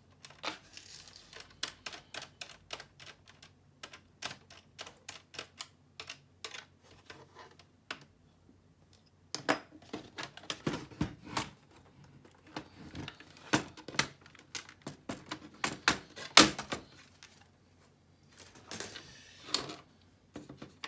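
Irregular sharp clicks and taps of hard plastic and small parts being handled as a laptop is taken apart, the loudest click about two-thirds of the way through, with a short scraping rustle near the end.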